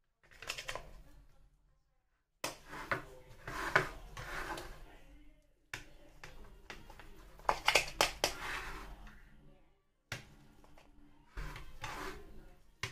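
Knife cutting through raw ground beef and tapping and scraping on the plate beneath, with handling clicks, in several short stretches that start and stop abruptly.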